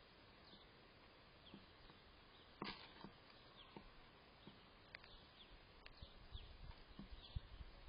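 Faint bird calls: a string of brief, falling chirps, with one louder call about two and a half seconds in.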